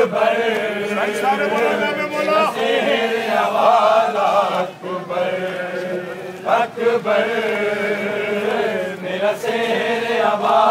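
Many men's voices chanting a noha, a Shia Muharram lament for Ali Akbar, together in long, drawn-out lines, with brief dips between phrases.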